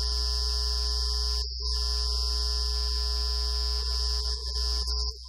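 Loud, steady electrical hum and buzz, a deep hum with a stack of buzzing tones and a high steady whine above it. It cuts out briefly about a second and a half in, and drops away just before the end.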